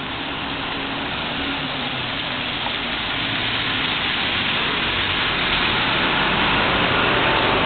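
Traffic on a rain-wet city street: a steady hiss of rain and tyres on wet road under running engines, slowly growing louder.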